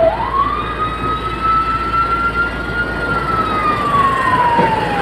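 Siren wailing: its tone sweeps quickly up at the start, then falls slowly in pitch for about four seconds.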